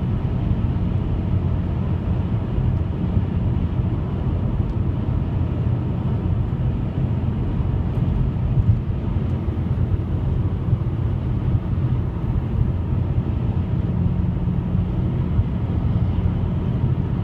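Steady low rumbling drone with a faint hum in it, holding level without change: the kind of sound presented as mysterious 'sky trumpets'.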